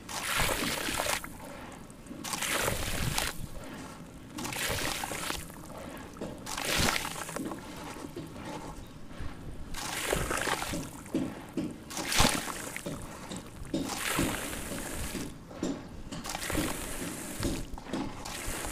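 Handfuls of fine dry powder poured into a basin of water, falling in with a hissing, splashing rush. The pours come again and again, a new one every second or two.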